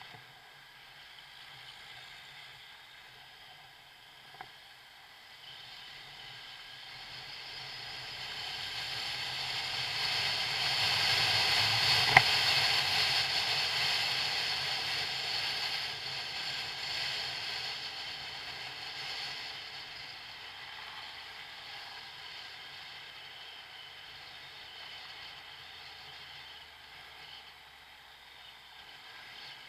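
Wind and road noise rushing over a camera mounted on a motorcycle rider, swelling to its loudest about twelve seconds in and then slowly easing off. A sharp click at the loudest point.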